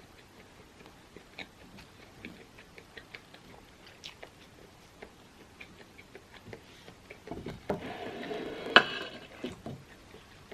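Close-miked eating: soft, scattered clicking mouth sounds of chewing. Near the end comes a louder, noisier stretch of about two seconds that peaks in one sharp click.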